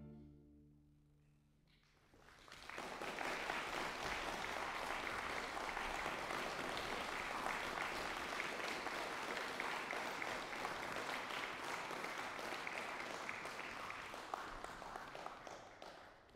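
The last chord of a string quartet dies away in the hall's reverberation, then audience applause starts about two seconds in, holds steady and fades out near the end.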